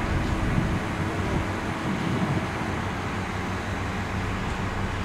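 Truck-mounted crane's engine running with a steady hum while the boom hoists a load.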